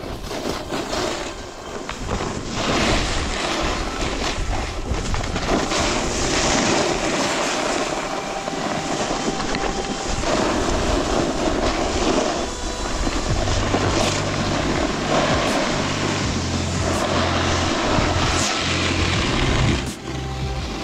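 Snowboard sliding and carving on packed snow, a steady rough scraping that swells and eases with the turns, mixed with wind buffeting the microphone. Low bass notes of background music join about two-thirds of the way in.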